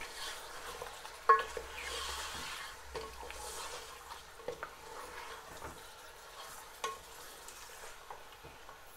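Mutton pieces with ginger, garlic and whole spices sizzling in hot oil in an aluminium pot while being stirred with a spatula, the start of browning the meat over a high flame. The spatula knocks against the pot a few times, the loudest about a second in with a brief metallic ring.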